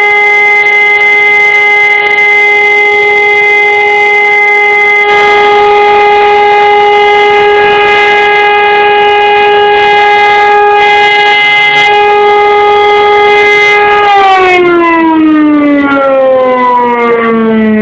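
Civil defense siren sounding the all-clear signal of a siren test, a single steady tone held without rise or fall. About 14 seconds in it is switched off and its pitch falls away slowly as it winds down.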